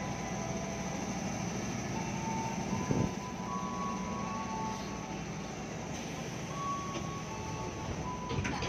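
Ambience of a KRL commuter-rail station, a steady rumble and hiss with a run of steady tones that step up and down in pitch every half second or so. There is a single knock about three seconds in.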